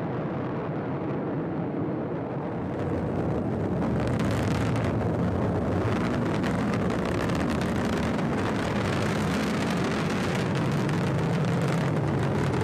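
Atlas V rocket's RD-180 main engine and two solid rocket boosters in ascent, a steady deep rumble with crackle that grows louder about four seconds in.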